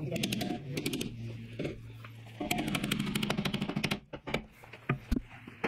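A metal hand tool scraping and rattling against a steel mower deck in two bursts of quick strokes, the second longer, followed by a few single knocks.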